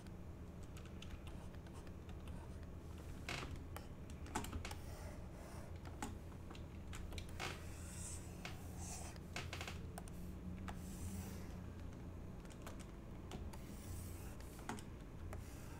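Irregular clicks and taps of computer keyboard keys, with a few short scratchy strokes, over a low steady hum.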